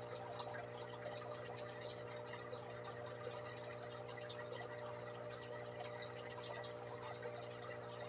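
Aquarium pump humming steadily, with a constant fine bubbling and trickling of water in the tank.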